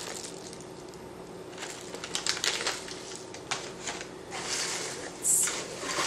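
Rustling and crinkling of snack packaging and box filler as items are handled and rummaged from a cardboard shipping box, in a string of short bursts, the loudest a little past five seconds in.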